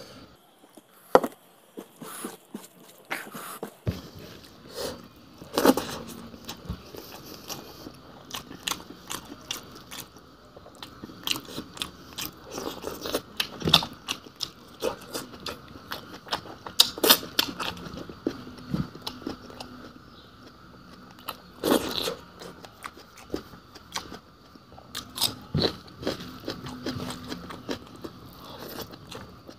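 Close-up chewing and biting of a fish and bamboo-shoot boil, with irregular crunching that gets louder in short spells every few seconds.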